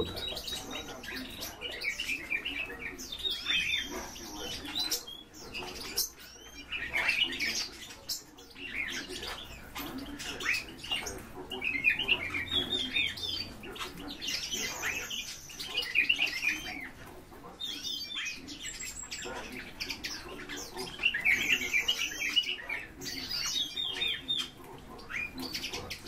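Birds chirping in short clusters every few seconds, over the scratching, rustling and wing-fluttering of a hoopoe sand-bathing in a tub of sand.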